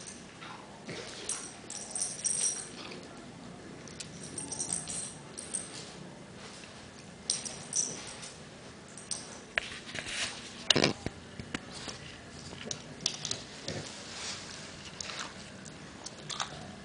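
Beagles playing on a hard floor: collar tags jingling in short bursts, with scattered clicks and knocks and one louder thump about two-thirds of the way through.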